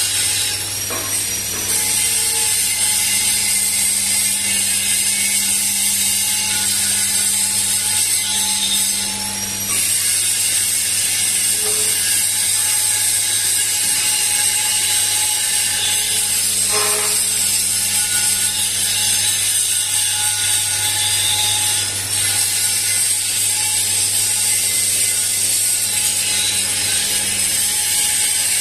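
Tea leaf drying machine running: a steady mechanical hum under a constant high hiss, with a lower hum that fades out about halfway through.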